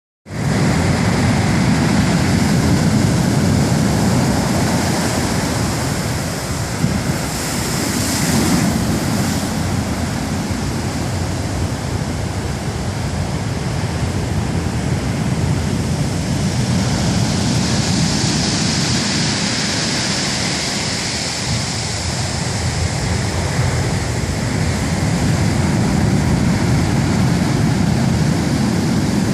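Heavy surf breaking on the shore: a continuous loud rush of crashing waves, swelling into a brighter hiss about eight seconds in and again around eighteen to twenty-one seconds.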